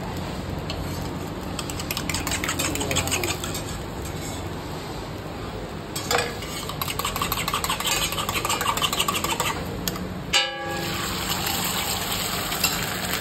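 Eggs being beaten fast with a spoon in a metal bowl: rapid clinking in two spells over a steady frying hiss. A single ringing metal clang comes about ten seconds in.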